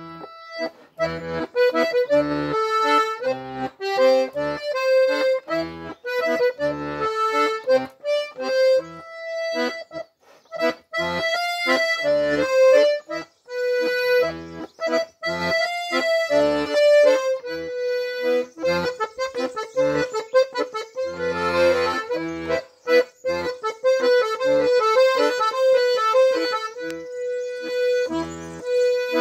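Diatonic button accordion played solo: a waltz tune on the treble side over regular pulsing bass notes.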